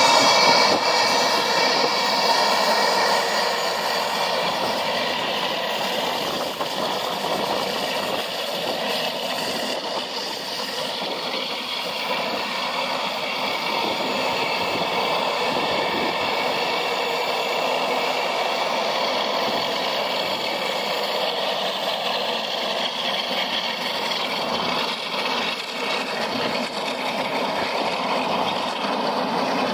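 Gulfstream G200 business jet taxiing at low power, its twin Pratt & Whitney Canada PW306A turbofans giving a steady whine. It is loudest at the start as the jet passes close, then eases a little as it taxis away.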